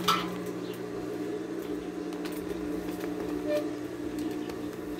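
Handling noise and a sharp knock right at the start as the camera is moved, over a steady low hum, with a few faint clicks.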